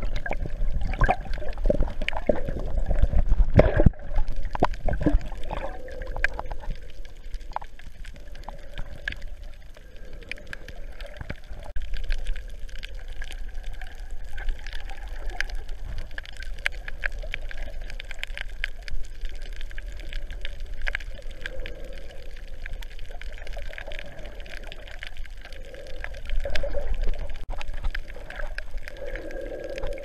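Underwater sound picked up by a GoPro in its waterproof housing: muffled water movement and gurgling with scattered clicks and knocks, busier and louder during the first few seconds.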